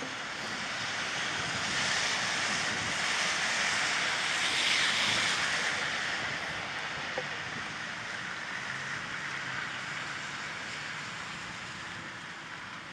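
A vehicle passing on a wet road: the hiss of tyres on water swells to a peak about five seconds in, then slowly fades away.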